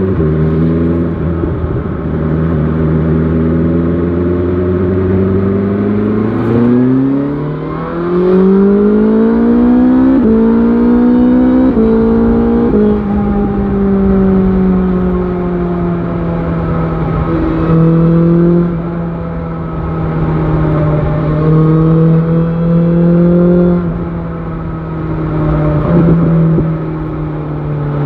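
BMW S1000 XR motorcycle's inline-four engine pulling away, rising in pitch through three quick upshifts, then settling into a steady cruise with small throttle rises and falls.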